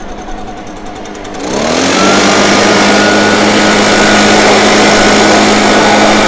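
Leaf blower running at low speed, then throttled up about a second and a half in, its pitch rising over half a second to a loud, steady full-speed whine.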